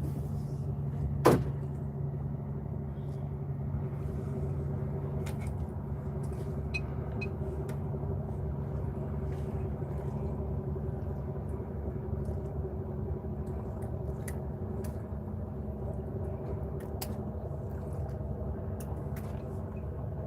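Fishing boat's engine running steadily at idle with a low hum, with one sharp knock about a second in and scattered light clicks.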